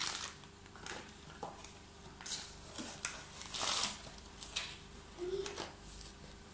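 Off-camera handling sounds: a series of short rustles and scrapes, likely the plastic baking-soda bag being moved and folded away. The loudest comes nearly four seconds in.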